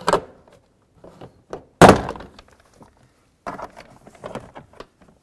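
Plastic push-pin clips of a door trim panel popping loose as a trim tool pries the panel off the door, a loud pop about two seconds in among several smaller clicks and rattles.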